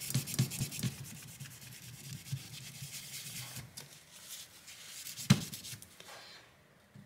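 Quick back-and-forth rubbing on a graphics card heatsink's metal contact plate, wiping off old thermal paste, about three strokes a second, fading out after a couple of seconds. A single sharp knock about five seconds in.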